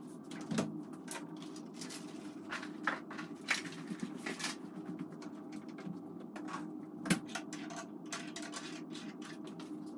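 Footsteps in slippers on a wooden floor, then scattered light knocks and clicks as objects are moved about and set down on top of an upright piano, with a sharper knock about seven seconds in.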